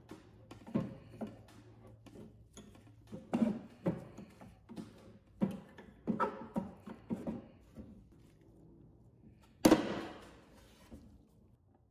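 End-cutting nippers gripping and levering a fastener out of a wooden drawer bottom: irregular creaks, squeaks and clicks of metal jaws working against wood. About ten seconds in comes the loudest sound, a single sharp crack that rings briefly.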